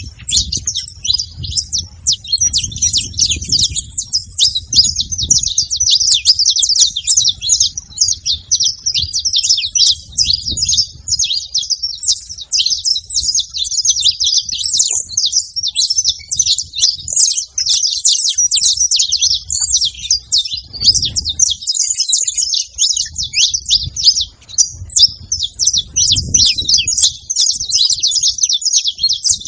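A flock of saffron finches chirping and calling over one another without a break, a dense high-pitched chatter of many birds at once.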